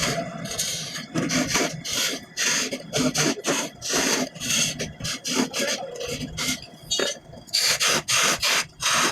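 Repeated rasping strokes of a hand tool scraping wood, about two a second and slightly uneven.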